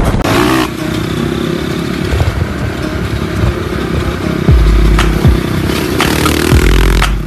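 Motocross dirt bike engine running at high, fairly steady revs, with wind buffeting the microphone in heavy low thumps.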